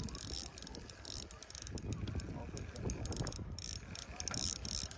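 Okuma Safina spinning reel being cranked as a hooked trout is reeled in: a mechanical whir of gears with rapid fine clicking.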